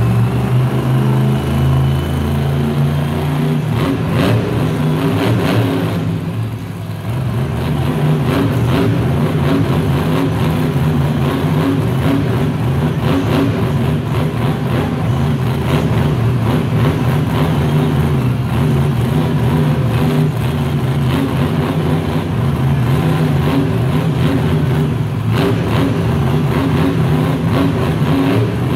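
Dragon monster truck's supercharged V8 engine held at high revs and revving loudly while the truck is stuck standing upright on its rear wheels on a dirt obstacle. The revs drop briefly about six seconds in, then climb back and stay up.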